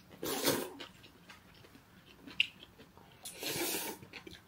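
Eating cold naengmyeon noodles: two short slurps, one near the start and one about three and a half seconds in, with chewing and a small click between.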